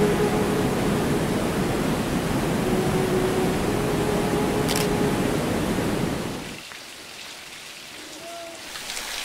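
Waterfall's steady rushing of falling water. It cuts off sharply about six and a half seconds in, leaving a much quieter stretch.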